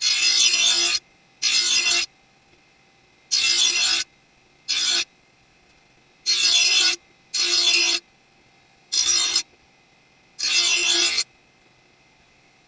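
Lawn mower blade pressed against the grinding wheel of a Magna-Matic blade sharpener in eight short grinding passes, each a loud scraping hiss lasting under a second. The wheel runs on with a faint hum between passes. The touch-up takes more metal off the heavier side to balance the blade.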